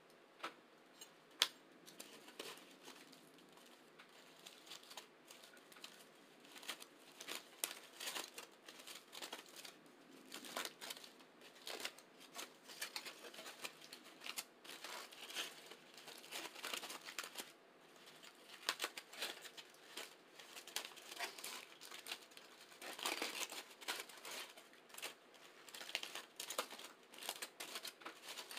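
Aluminium foil crinkling and rustling as it is handled, a run of irregular crackles that gets busier a few seconds in.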